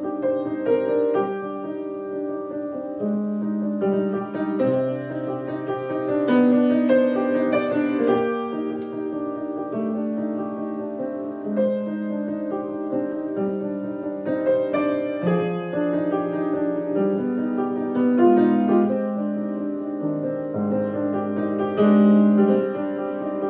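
Yamaha piano being played: a melody over held chords and low bass notes, the notes changing every second or so.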